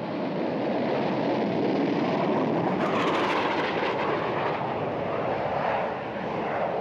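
Sea Harrier's Rolls-Royce Pegasus turbofan at takeoff power during a short takeoff run along a carrier deck and up the ski-jump: a loud, steady jet noise that swells over the first second and grows harsher about three seconds in.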